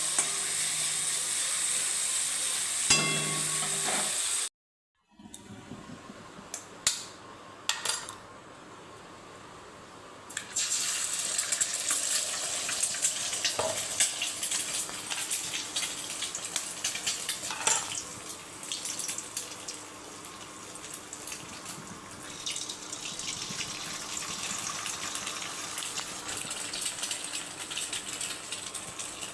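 Food sizzling in a hot pan for about four seconds until an edit cuts it off. A few sharp clinks follow, then a steady hiss comes back, louder, for the rest.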